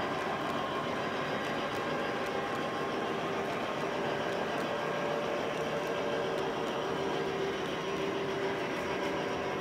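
O gauge model train running along the layout track: a steady whir of the wheels and motors, with a faint steady hum.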